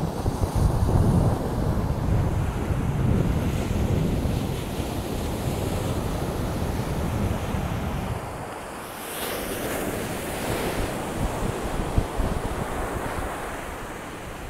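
Ocean surf breaking and washing up a sandy beach, with wind buffeting the microphone. A heavy low rumble in the first few seconds, then a brighter hiss of foam rushing up the sand about nine seconds in.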